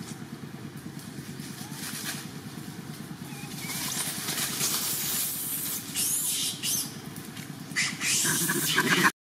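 Dry leaf litter rustling and crackling as macaques walk and shuffle over it, over a steady low rumble. About eight seconds in, a few short high-pitched cries.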